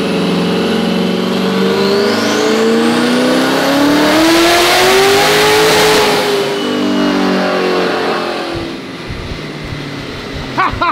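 Twin-turbo C8 Corvette V8 making a full-throttle pull on a hub dyno. The engine note climbs steadily in pitch for several seconds and is loudest near the top. About six seconds in it lifts off and winds down, fading by about nine seconds.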